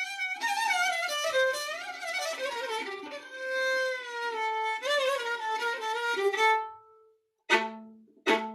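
Amateur solo violin playing a Turkish folk melody, with held notes and sliding pitch. The phrase fades out, and after a brief silence two sharply attacked notes start it again near the end.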